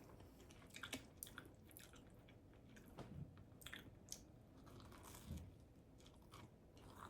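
Quiet, close-up chewing of a mouthful of tuna melt sandwich, with scattered small wet clicks and crunches of the toasted bun.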